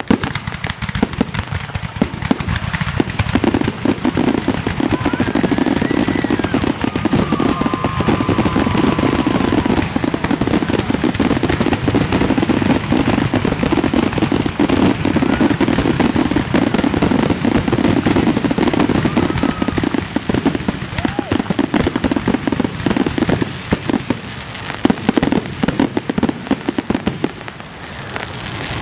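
Aerial fireworks shells bursting in a dense, nearly continuous barrage of overlapping bangs and crackling, loudest through the middle and thinning out over the last several seconds.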